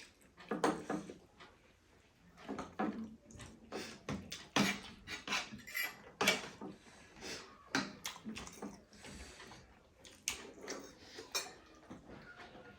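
Cutlery clinking and scraping on plates and bowls at irregular moments, mixed with the mouth sounds of people chewing food.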